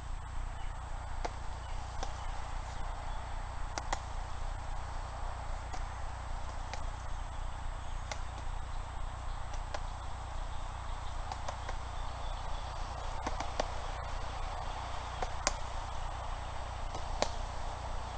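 Punches landing on a heavy bag: irregular knocks and thuds, a few harder blows standing out, over a steady low hum.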